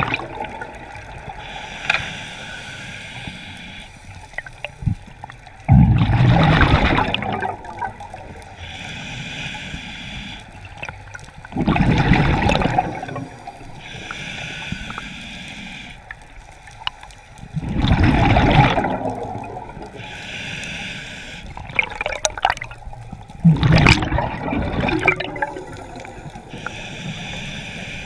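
Scuba diver breathing through a regulator: five loud rushes of exhaled bubbles about six seconds apart, with a softer hiss of inhaled air between them.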